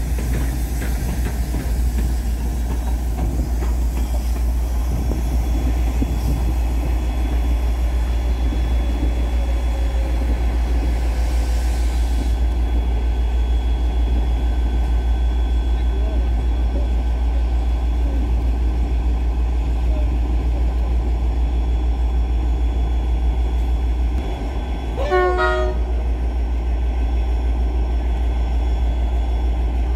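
Locomotives at a platform: a steady low rumble of diesel engine running, with steam hissing from the steam locomotive that stops about twelve seconds in. About 25 seconds in, a single short train horn blast sounds.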